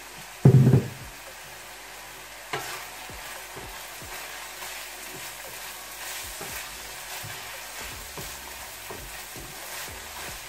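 Minced beef and pork sizzling in a hot frying pan, freshly seasoned with soy sauce, while a spatula stirs and scrapes through it. A loud thump about half a second in and a sharp knock a couple of seconds later.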